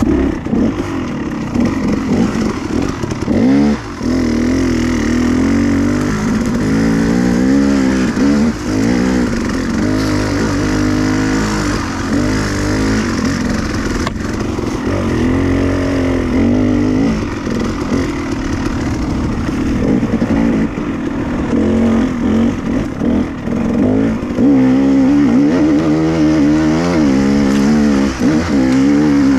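Dirt bike engine being ridden, revving up and falling back over and over as the throttle is opened and closed, its pitch climbing and dropping every second or two.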